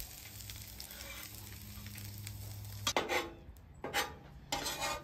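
Food sizzling on a Weber flat-top griddle. From about three seconds in, a metal spatula scrapes or clatters against it four times in quick short strokes, louder than the sizzle.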